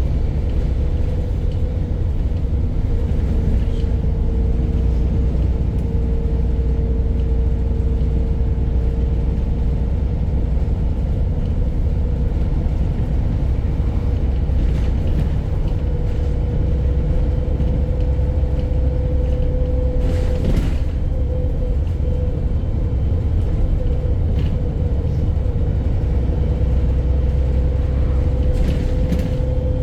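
VDL bus's diesel engine running with a deep rumble and a steady whine, the engine knocking. A short hiss cuts in about two-thirds of the way through.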